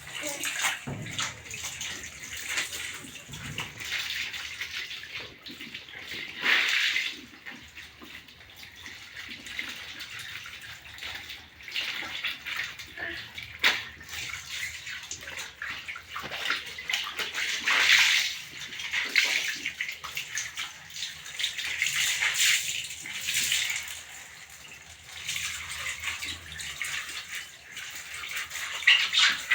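Water splashing and sloshing in a bathtub, coming and going in irregular swells.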